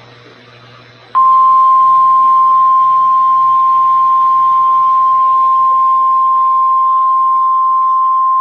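NOAA Weather Radio warning alarm tone. A single steady, loud, high beep tone starts abruptly about a second in, after faint radio hum, and holds without a break. It is the 1050 Hz alert that signals a warning bulletin, here a severe thunderstorm warning.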